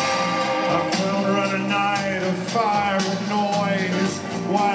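Live rock band playing loudly, with a voice singing over the band from about a second in.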